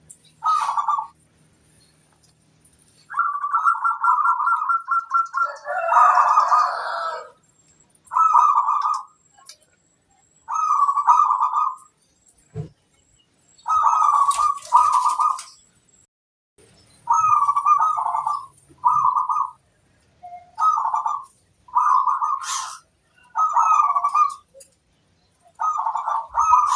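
Zebra dove (perkutut) song: repeated phrases of quick staccato coos, each under a couple of seconds, with short pauses between them, and a longer fast trill a few seconds in.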